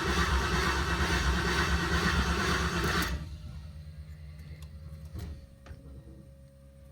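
LS V8 engine turned over by its starter motor without firing, cutting off about three seconds in, followed by a few faint clicks. It cranks but won't catch: no spark and no fuel.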